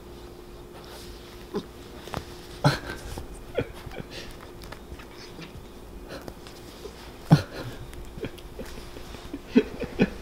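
A cat wrestling a cloth catnip toy on a wooden floor, biting it and kicking it with its hind legs: scattered soft knocks and scuffs, a few louder ones about a third of the way in, again after seven seconds and near the end.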